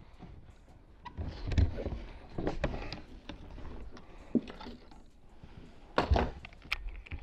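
Irregular knocks, bumps and small rattles from handling things in a fishing kayak. The loudest cluster of knocks comes about six seconds in.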